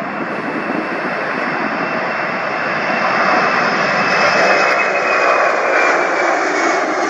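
Boeing 767-200's twin jet engines at takeoff thrust as the airliner rolls, rotates and lifts off: a loud, steady roar that swells through the middle, with a high whine falling slightly in pitch as it passes.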